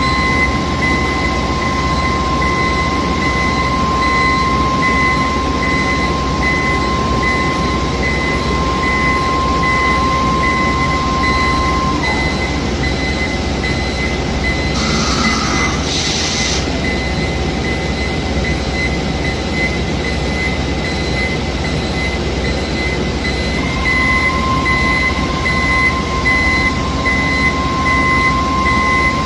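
Kuraki CNC horizontal boring mill running: a steady high whine over machine noise, with a repeating beep. The whine winds down and stops about twelve seconds in and returns a few seconds before the end, and a short hiss comes around fifteen seconds in.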